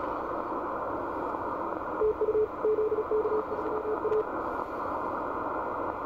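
Shortwave receiver hiss on the 17 m band from an Icom IC-7600 transceiver in CW mode, with a short string of Morse code at one steady pitch keyed over it about two seconds in, lasting about two seconds.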